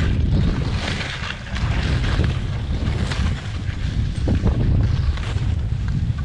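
Wind rumbling on the microphone of a fast-moving skier, with skis hissing through soft snow in surges that swell and fade with the turns.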